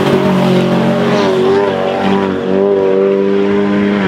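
Cars driven hard past at high revs, running close together, the engine note wavering and dipping briefly a few times.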